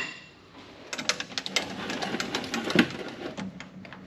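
Steel rule and metal parts clattering and clicking in a quick, irregular run while they are handled against a steel shaft on a lathe. The clatter starts about a second in and dies away near the end.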